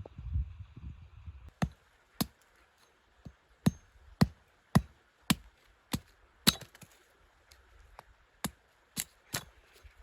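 Axe or hatchet chopping wood: a run of sharp strikes about two a second, a short pause, then three more.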